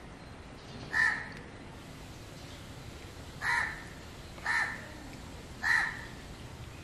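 A bird calling four times in short calls, the last three about a second apart.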